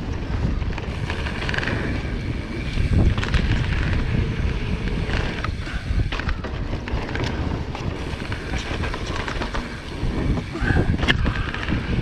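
Wind buffeting the microphone over the noise of a Marin Alpine Trail XR mountain bike running down a dirt trail, its tyres rolling and the bike rattling, with a few sharp knocks from bumps, including one about eleven seconds in.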